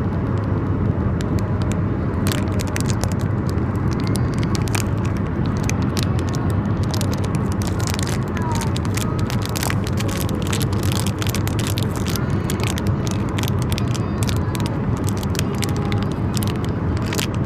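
Steady road rumble inside a moving car, with a foil blind bag crinkling over and over as it is squeezed and felt through.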